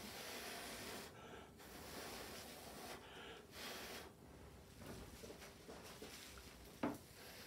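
Faint, long breathy blows through a drinking straw, several in a row with short gaps, pushing wet acrylic pour paint across the canvas. A short knock near the end.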